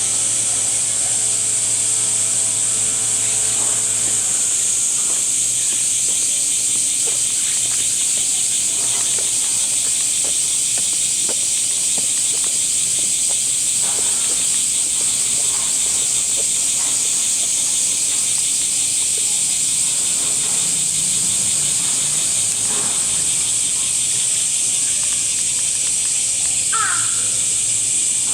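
Cicadas droning steadily at a high pitch. A low hum sounds for the first few seconds, and a short chirp comes near the end.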